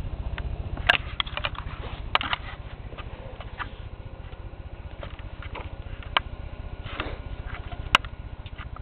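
Lawnmower engine running steadily, a low pulsing rumble, with several sharp clicks and taps scattered through it.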